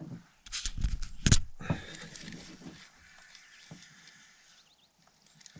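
A quick cluster of knocks and hollow thumps, the loudest about a second in, as fishing gear is handled and bumps against the canoe's hull, followed by faint clicks and rustling.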